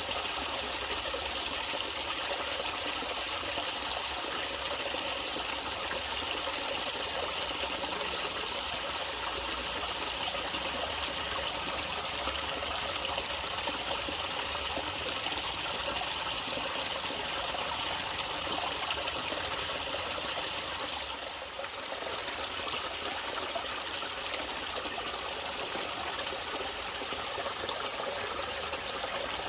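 Natural running water, a stream trickling and flowing steadily, dipping briefly for a moment about two-thirds of the way through.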